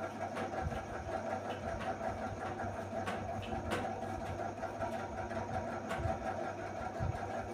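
A steady mechanical hum, like a small electric motor running, with a few light clicks on top.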